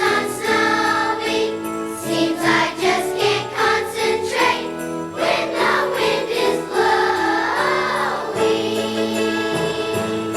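Children's choir singing a Christmas song with musical accompaniment and jingle bells.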